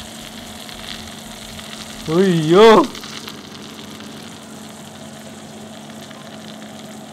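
Freshly roasted whole chicken sizzling steadily in a hot air-fryer oven as the door is opened, with a low steady hum underneath. A person gives one brief drawn-out exclamation about two seconds in.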